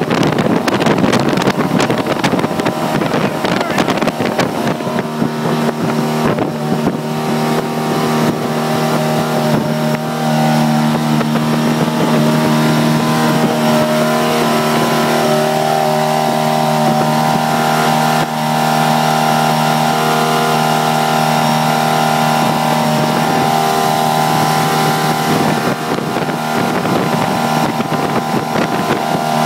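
Jet boat's engine running steadily at speed, its pitch holding even, over rushing water and wind on the microphone that are strongest in the first few seconds.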